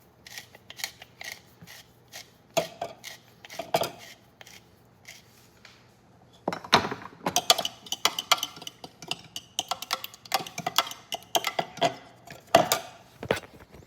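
Kitchen utensils clinking and tapping against a bowl while the eggs are seasoned: scattered knocks at first, then a dense run of quick clinks through the second half.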